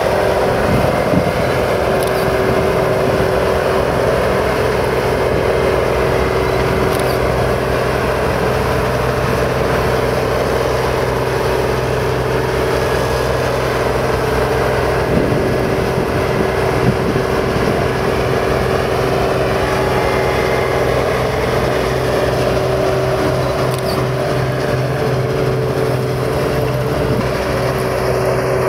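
Combine harvester running steadily under load, its diesel engine and threshing machinery making a constant even drone with a steady hum.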